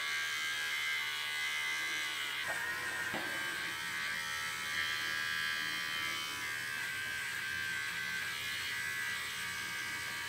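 Wahl Bravmini mini cordless trimmer with a fixed #30 blade running steadily with a quiet, even buzz as it clips the fur on a toy poodle's face.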